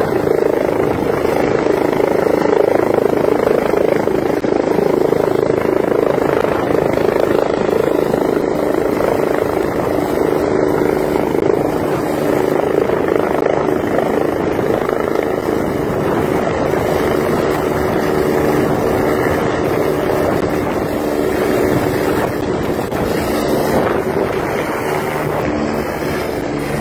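Eurocopter EC145 helicopter hovering close by with a skid held against the snow slope, its main rotor and twin turbine engines running loud and steady. It eases off slightly near the end.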